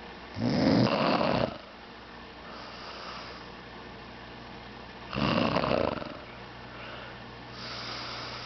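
A woman snoring in her sleep: two loud snores, each about a second long and about five seconds apart, with fainter breaths between them. A steady low hum runs underneath.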